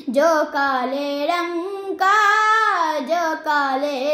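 A girl singing an Urdu naat solo and unaccompanied, in long phrases with held notes that bend up and down in pitch.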